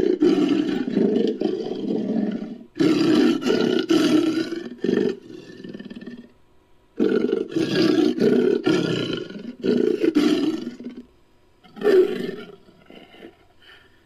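Sound-effect roars of a Homotherium, a scimitar-toothed cat, built from lion and tiger roars: a run of long, loud roars with short pauses, a last short roar about twelve seconds in, then it dies away.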